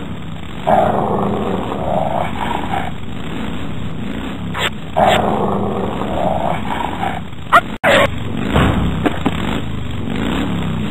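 Cartoon dog growling as it strains against its leash, in two matching stretches, over a steady engine hum. There are a few sharp clicks around the middle.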